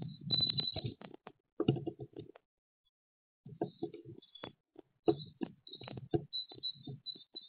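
Great tit scratching and rustling about in the nest material inside a nest box, with small knocks on the wood and short high peeps in between. The scratching stops for about a second midway, then picks up again with more peeps.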